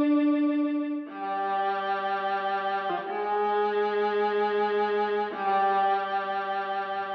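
Recorded music of a bowed string instrument playing slow, long-held notes, changing note three times, played back through Fyne Audio F500 SP hi-fi loudspeakers.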